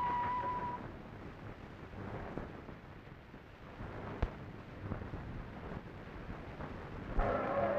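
A music cue cuts off just under a second in, leaving a low, noisy rumble with faint scattered knocks and one sharp click about four seconds in. A louder, fuller noise sets in near the end.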